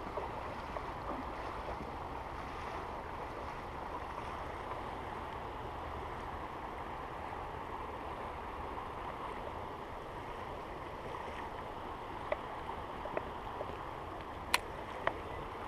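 Creek water running steadily, an even rushing hiss of a small stream, with a few faint sharp clicks near the end.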